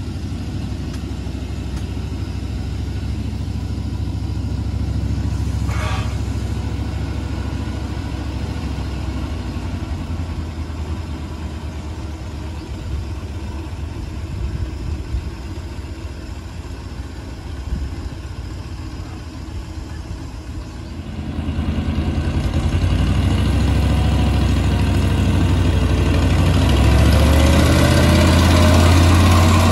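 A 7.25-inch gauge ride-on train with a diesel-outline locomotive runs on the track, its engine droning steadily. The sound grows louder and fuller from about two-thirds of the way through as the train approaches and passes close by.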